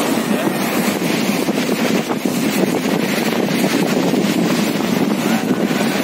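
Small waves washing onto a sandy beach, with wind buffeting the microphone; a steady, unbroken noise.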